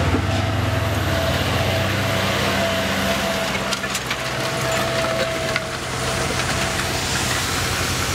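Tractor engine running while it pulls a disc harrow through freshly cleared ground, the discs crackling and snapping through roots and woody debris in the soil. A low engine hum is strongest over the first few seconds, and the crackling grows busier after that.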